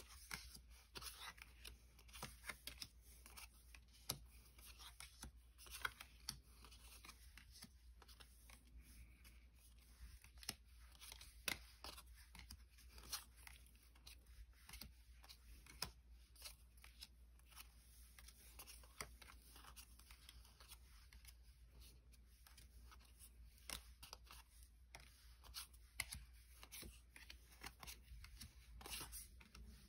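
Faint handling of trading cards and their plastic and foil packaging: scattered light clicks, snips and rustles, some sharper than others, over a steady low hum.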